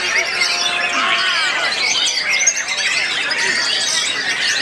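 Many caged white-rumped shamas singing at once: a dense, continuous tangle of overlapping whistled and chattering phrases.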